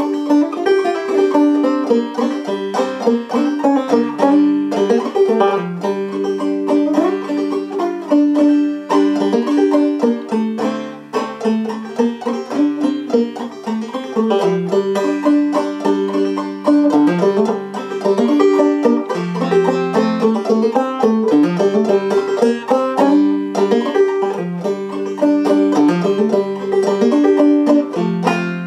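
Solo Gold Tone five-string banjo played clawhammer style, with three-finger clawhammer picking in G modal tuning: a quick, continuous run of plucked melody notes over ringing drone strings, playing an old-time tune.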